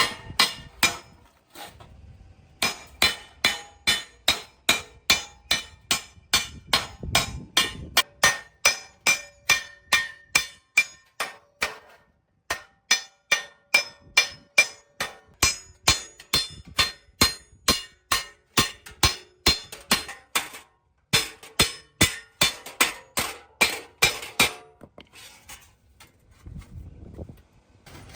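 Hammer striking metal over and over, about two to three ringing blows a second, in several runs with short pauses between them.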